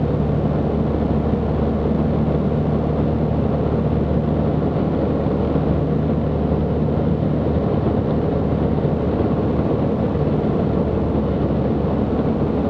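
Cabin drone of a Zenith CH 750 Cruzer in level flight: the 118-hp UL Power UL350i flat-four engine and propeller running steadily at an even power setting, a low hum over the rush of the airflow.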